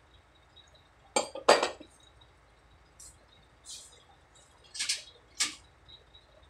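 Metal parts and tools clinking and knocking together during hand assembly of a truck air compressor: six short, separate clinks, the loudest about a second and a half in.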